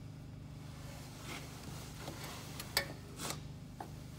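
A few light metal clicks and scrapes as a bolt and Allen socket are worked into the bolt holes of a new fan clutch, the sharpest click a little before three seconds in, over a steady low hum.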